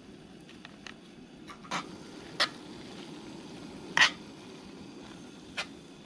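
A utensil clinks and scrapes against a small 2-quart Stansport cast-iron Dutch oven as ground beef is stirred, a few sharp knocks with the loudest about four seconds in, over a steady low hiss.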